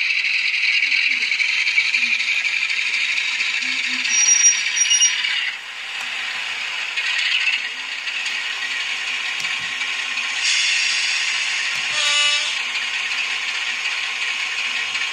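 Miniature loudspeaker of a DCC sound decoder in an N gauge Farish Class 45 'Peak' model, playing a recorded diesel engine sound that comes out thin and rattly. The level dips about five and a half seconds in, and about twelve seconds in there is a short pitched tone.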